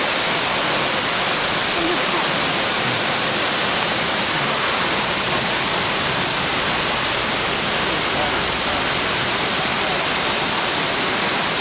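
Multnomah Falls: a large waterfall's falling water making a loud, steady rush of noise with no change in it.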